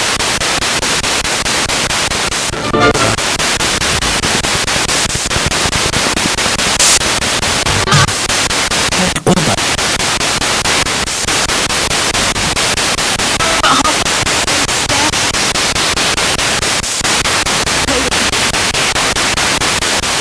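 Spirit box radio sweeping rapidly through stations: loud, continuous static chopped by fast, even switching ticks, with brief fragments of broadcast voice or sound breaking through now and then.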